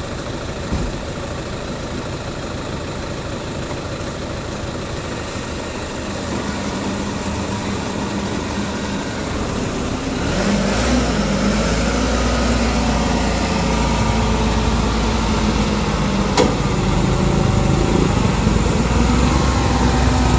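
Crane truck's diesel engine idling steadily, then running louder with a deeper drone from about halfway through. There is a single sharp knock near the three-quarter mark.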